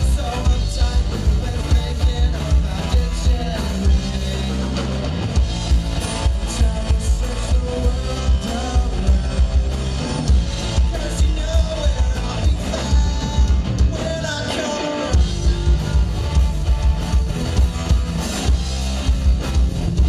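Live rock band playing: electric guitar and drum kit keeping a steady beat. The low end drops out briefly about three-quarters of the way through, then comes back in.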